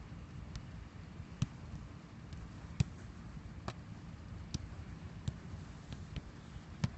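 Football being passed back and forth with the feet: a run of sharp thuds of boot on ball, roughly one a second, over a steady low background noise.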